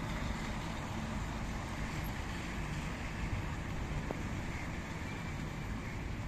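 Steady outdoor city ambience: an even, low rumble of distant traffic with no distinct events.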